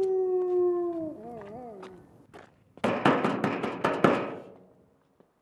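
A long, drawn-out animal howl on one slowly falling note wavers and fades during the first two seconds. About three seconds in comes rapid, repeated knocking on a wooden door, a quick run of raps lasting about a second and a half.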